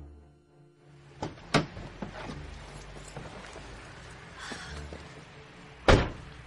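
A few sharp knocks and clicks, the loudest about a second and a half in, then one heavy thud near the end, over a low steady hum.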